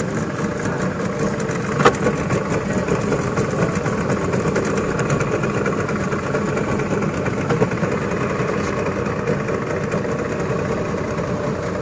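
Small boat's motor running steadily at low speed, with one sharp click about two seconds in.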